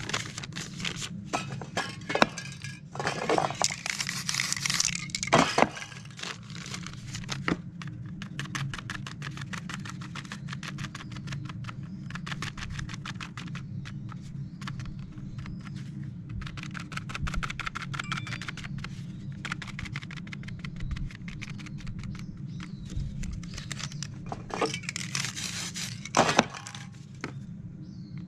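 A piece of crumpled paper crinkling and being dabbed again and again onto a spray-painted board, a rapid run of light taps and crackles. There are louder rustling bursts a few seconds in and again near the end, over a steady low hum.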